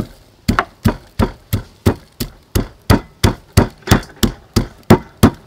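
Wooden pestle pounding garlic, lemongrass and black peppercorns in a wooden mortar: steady dull thuds, about three a second.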